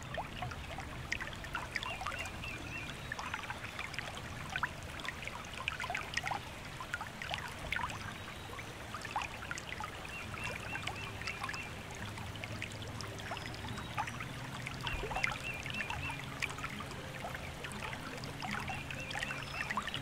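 Stream water trickling and babbling, a steady rush dotted with many small splashes. Soft, sustained low notes of background music come in about halfway.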